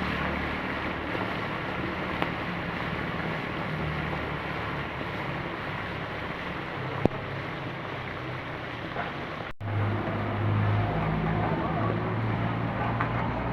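Chicken frying in hot oil, a steady sizzling hiss, with a low hum underneath and a sharp click about seven seconds in.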